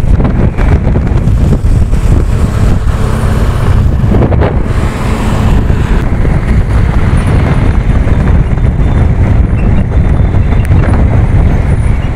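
Steady wind rush on the microphone and road and traffic noise, heard from a motorcycle riding along a highway past heavy trucks.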